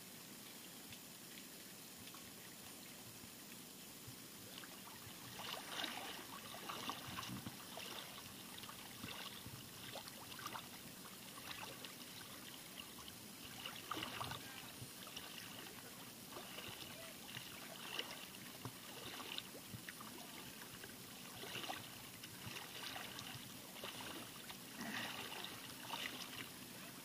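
Shallow seawater lapping and sloshing in small, irregular splashes, starting about five seconds in.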